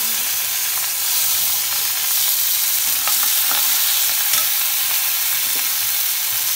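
Chopped tomatoes sizzling as they hit hot mustard oil in a kadhai, the sizzle jumping up right at the start, then stirred with a metal spatula that scrapes the pan a few times.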